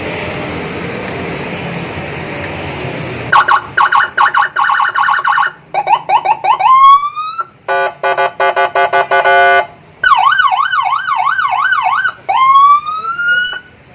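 Custom 'landun' police-escort electronic siren cycling through its modes, starting about three seconds in: rapid yelping pulses, then rising whoops, a fast stepped hi-lo warble, a quick up-and-down wail, and rising whoops again.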